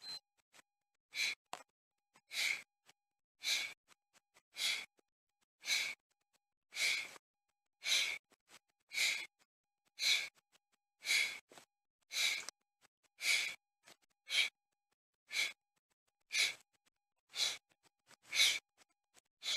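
A man's sharp, hard exhalations, about one a second in a steady rhythm, each breath pushed out on a rep of standing knee-to-elbow crunches during a HIIT work interval.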